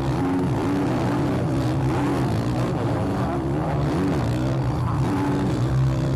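Motocross bikes racing: several dirt-bike engines revving, their pitch rising and falling over and over as they accelerate and shift.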